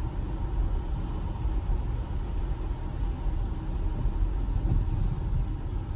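Steady road and tyre rumble inside a Tesla Model Y's cabin while it drives on wet roads; an electric car, so there is no engine note.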